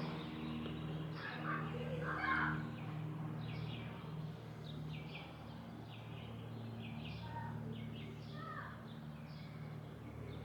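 Small birds chirping over and over over a steady low hum.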